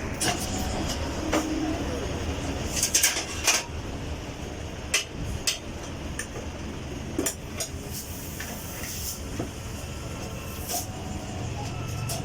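Tyre-fitting work in a workshop: scattered metal clanks and knocks, a cluster of them about three seconds in, over a steady background noise, with a short high hiss near the eight-second mark.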